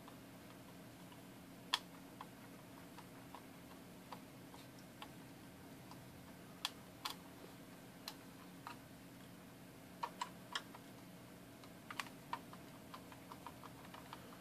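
Faint, irregular light clicks and ticks of a small screwdriver working screws loose from a clock's circuit board and plastic case, the sharpest click about two seconds in and a quick run of them near the end. A faint steady low hum lies underneath.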